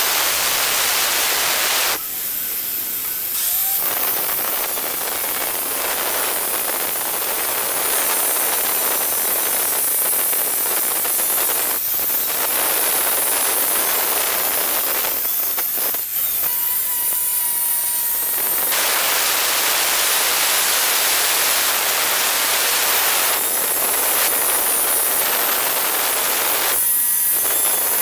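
Hand-held electric marble cutter with a diamond blade sawing through a stone slab, a loud, steady gritty grinding. The cutting noise thins out briefly three times, about two seconds in, midway and near the end, leaving a steady whine.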